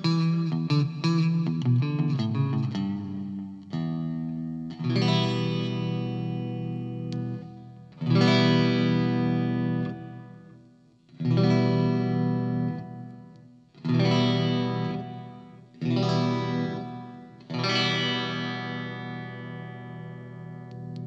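Electric guitar, a Stratocaster with Fender N3 Noiseless pickups, played amplified: a quick run of picked notes, then from about five seconds in, full chords struck every two to three seconds and left to ring out and fade.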